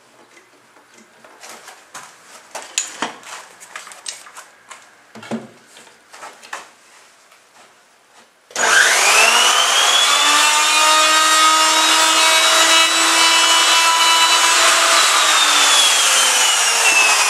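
Light clicks and knocks of handling for the first half, then an electric router (milling cutter) switches on about 8.5 s in, spins up to a steady high whine while cutting a coil slot in OSB board, and starts winding down, its pitch falling, from about 15 s in.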